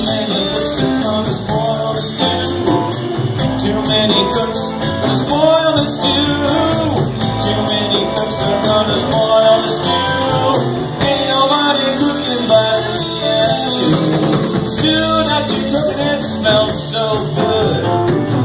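Live blues band playing an instrumental break: electric guitars, electric bass and drum kit, with a lead line bending notes over the shuffle.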